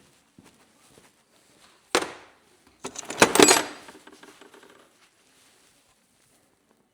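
Metal parts being handled: a sharp knock about two seconds in, then a louder clatter of metal on metal with brief ringing about a second later.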